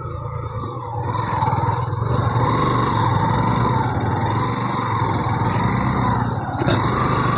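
Yamaha FZ V2 motorcycle's single-cylinder engine running under way on a rough track, growing louder about a second in, with a wavering whine over a steady low rumble. A brief dip comes about two-thirds through.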